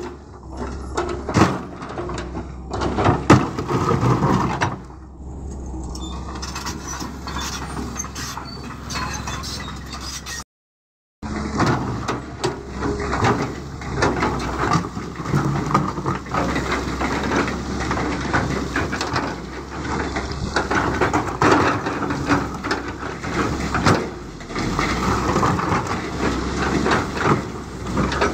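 Caterpillar hydraulic excavator's diesel engine running under load while its steel bucket scrapes through loose stone, with rocks knocking and clattering. The sound drops out for a moment about ten seconds in.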